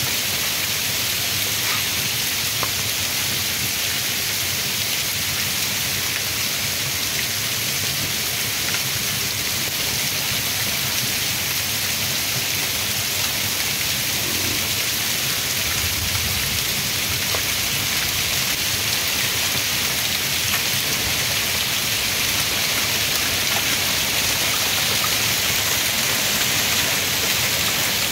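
Heavy wind-driven rain pouring down steadily in a severe storm, with runoff spilling off a roof edge.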